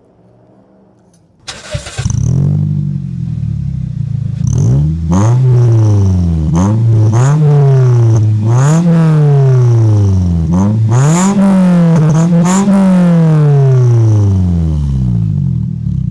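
Toyota Corolla engine revved through an aftermarket exhaust tip fitted with a small clip-on turbo whistle. It comes up loud about a second and a half in, then rises and falls in pitch about eight times. A faint whistle can be heard at the start of a rev before the exhaust note takes over.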